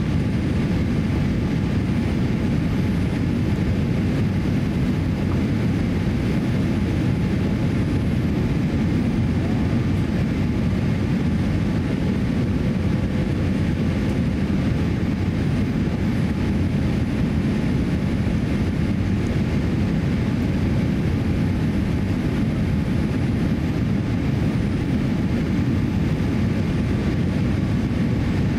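Steady cabin noise inside a Boeing 787-8 airliner on final approach: a low, even rumble of engines and airflow past the fuselage, with a faint steady hum above it.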